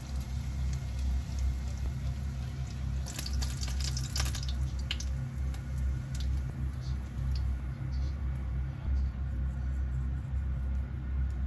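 Chopsticks clicking against a frying pan as fried pieces are lifted out, a quick cluster of clicks about three seconds in, then a few light taps, over a steady low hum.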